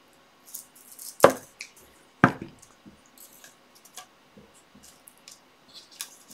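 Large scissors and a card strip being handled on a wooden table: two sharp clacks about a second apart, then faint rustling and small taps as the strip is fitted into a picture frame.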